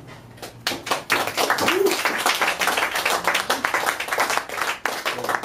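Small audience applauding, the clapping starting under a second in and dying away near the end.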